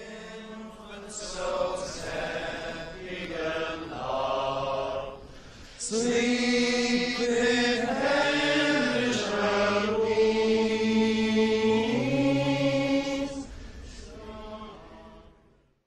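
Men's voices singing a Christmas carol in long held notes. The singing is softer at first, grows fuller and louder about six seconds in, and fades away near the end.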